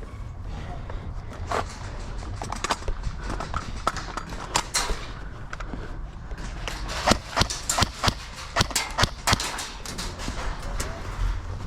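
Airsoft guns firing: irregular single sharp cracks, coming more thickly in the second half, over a low rumble.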